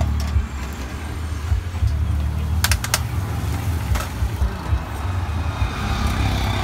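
Steady low rumble, with a few sharp metal clinks as the lids of small hopper pans are handled on the burner stand: two quick ones near the middle and one a moment later.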